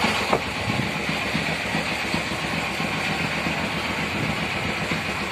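Engine running steadily during a river crossing on a pontoon ferry, an even sound with no change in speed.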